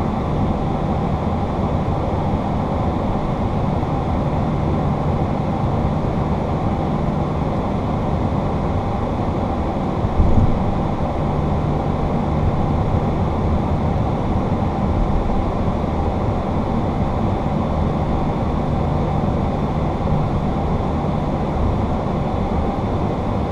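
Steady cockpit noise of a Boeing 737-800 taxiing, its engines at idle, with a low hum. A brief low thump about ten seconds in.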